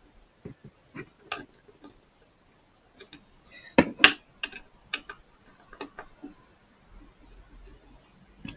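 Irregular small clicks and taps of a new dimmer switch and tools being handled while it is fitted, the loudest pair about four seconds in.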